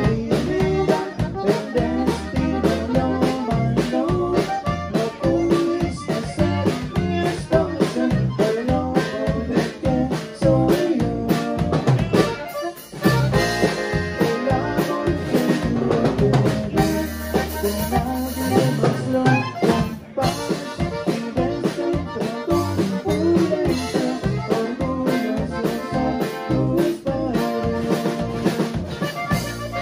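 Live conjunto band playing: diatonic button accordion over drum kit, electric bass and acoustic guitar, with a man singing lead.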